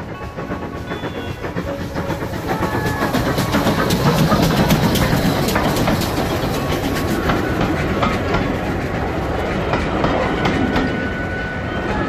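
Steam train passing close by: the sound swells to its loudest about four seconds in as the locomotive goes past, then the coaches roll by with a run of sharp clicks from the wheels over the rail joints.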